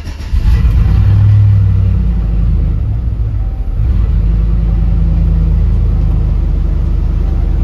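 Chevy Silverado 1500 engine starting: it catches about a third of a second in, runs loudest for the next second or two, then settles into a steady idle.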